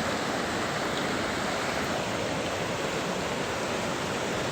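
Fast-flowing river rushing past, a steady even roar of water.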